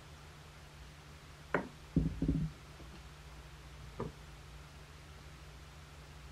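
Glass teapot being handled after filling: a sharp click about a second and a half in, then a short clatter of two or three glass knocks, and one faint click about four seconds in.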